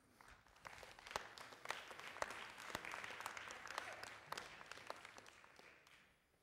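Congregation applauding, faint: many overlapping claps that build up over the first second and die away near the end.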